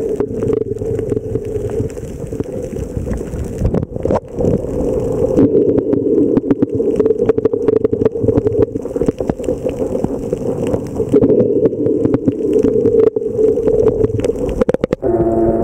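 Underwater noise picked up through a camera's waterproof housing: a steady low drone with many scattered clicks and crackles. Just before the end, a few steady ringing tones set in.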